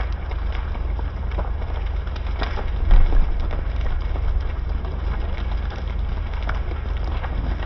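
Burning timber building crackling and snapping irregularly over a steady low rumble, with one heavier thump about three seconds in.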